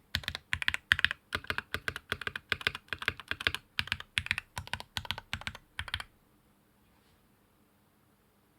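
Custom SQUARE.X mechanical keyboard with lubed 62g Alpaca linear switches on an aluminum plate, typed on at a fast, even pace: a rapid run of key clacks that stops about six seconds in.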